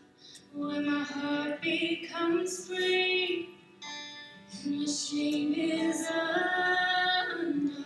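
A woman singing solo into a microphone, in slow phrases with long held notes and short breaks between them.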